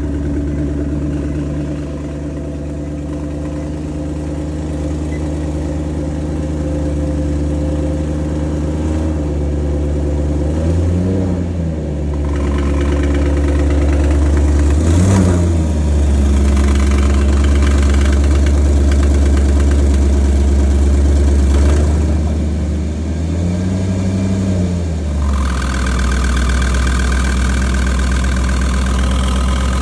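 2014 Maserati GranTurismo's V8 idling steadily just after starting, with three brief revs about 11, 15 and 24 seconds in. A steady higher-pitched tone joins the idle from about halfway and grows stronger near the end.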